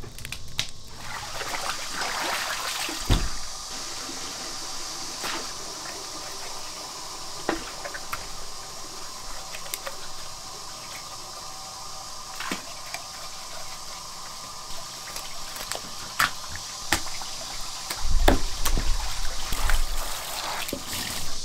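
Water flowing and splashing, with scattered clicks and knocks. A louder low rumbling stretch comes near the end.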